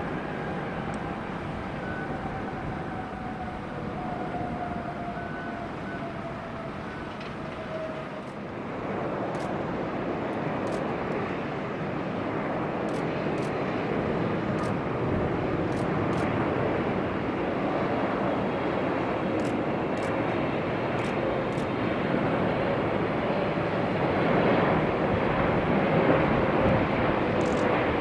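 Jet airliner noise at an airport runway. First an Airbus A330-300 whose engine whine falls in pitch. Then, after a cut about eight seconds in, a Boeing 777-200F freighter's jet roar grows steadily louder as it comes in to land.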